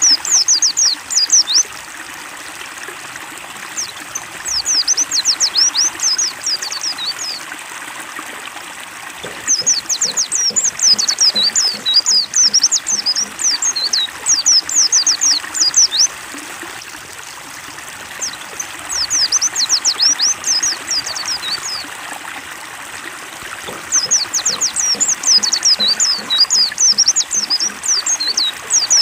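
White-eye (pleci) song: five bouts of rapid, high twittering, each a few seconds long with short pauses between, over steady trickling water.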